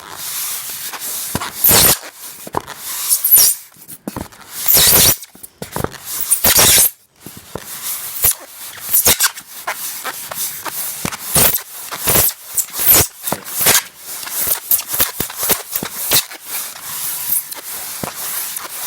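Loud scraping or rubbing noise in irregular short strokes, several a second, with longer louder strokes around two, five and six and a half seconds in.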